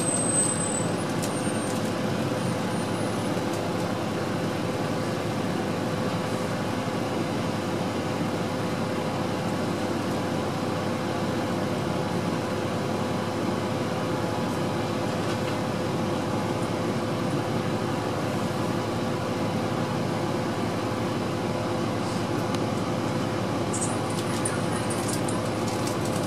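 Steady interior hum of a 2006 Orion VII transit bus with its Cummins ISL diesel idling, mixed with ventilation fan noise and a constant low whine. A few faint high squeaks come near the end.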